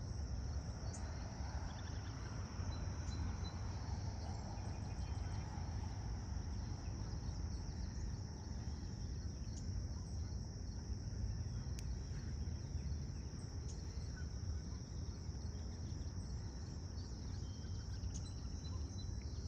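Insects, crickets or similar, singing in a steady, unbroken high-pitched chorus, over a low steady rumble.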